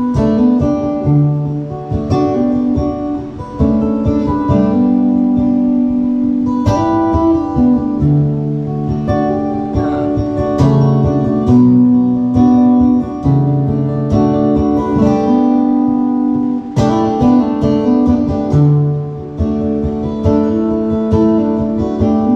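Acoustic guitar strumming chords with no singing, in a chord pattern that repeats about every six seconds.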